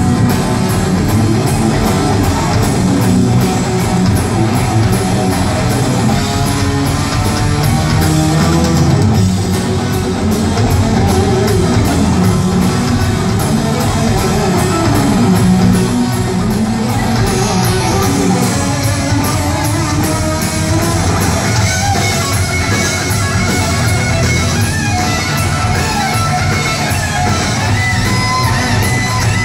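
Hard rock band playing live: electric guitar over drums, with sustained melodic guitar lines in the second half.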